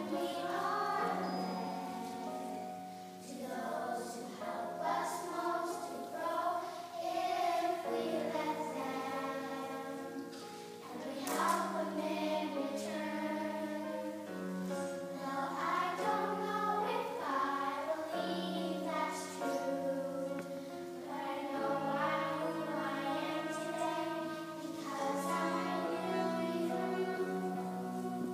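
Children's choir of girls singing a song, with notes held and changing throughout.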